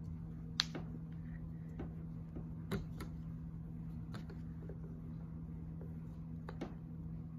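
Wooden rolling pin rolling out a slab of clay on a canvas cloth, with a few light clicks and knocks scattered through, over a steady low hum.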